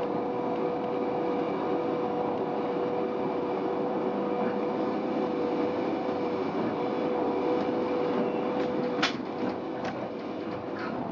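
Stadler GTW 2/6 railcar running along the track, heard from inside the cab: a steady running hum with a constant drone. About nine seconds in there is one sharp click, then a few fainter clicks.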